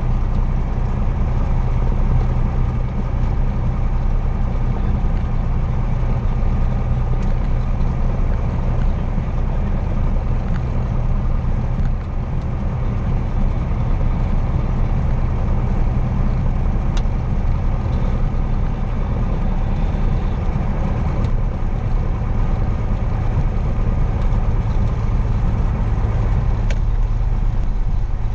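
Cessna 172's piston engine running steadily at low power, heard from inside the cockpit as a deep, even drone.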